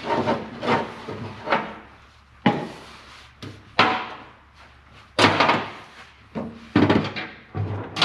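A series of irregular knocks and clunks, about a dozen in eight seconds, from tools and engine parts being handled and set down on the bench during an engine teardown.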